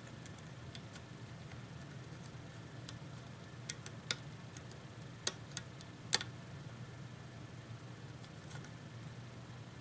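Lock pick working the pin stacks of a pin-tumbler lock under tension, giving scattered small clicks, a cluster of sharper ones from about four to six seconds in. It is a clicky lock whose clicks the picker takes for serrated pins catching. A steady low hum runs underneath.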